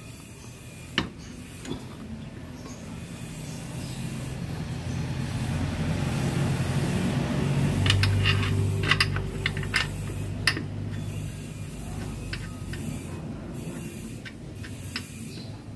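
A motor vehicle's engine passes by, its hum rising over several seconds and then fading. Sharp metallic clicks and taps come from hand tools on the scooter's muffler-mount bolt, most of them clustered in the middle and a couple near the start and end.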